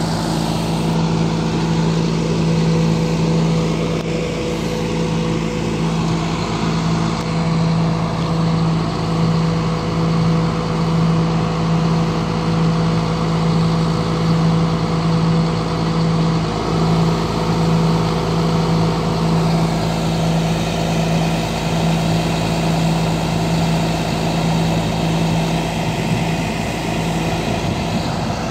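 John Deere self-propelled crop sprayer's diesel engine running at a steady speed as the machine drives slowly, a constant drone that neither rises nor falls.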